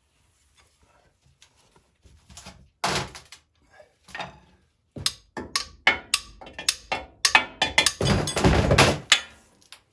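Steel pry bar knocking and scraping against the old differential side seal and the iron housing as the seal is pried out: irregular metal knocks and clanks that start after a near-silent two seconds, with a long, dense scraping stretch near the end.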